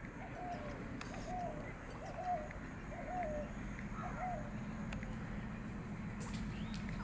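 A bird calls five times, about once a second, each a short note that rises and falls, over a low rumble from an approaching train that grows stronger toward the end.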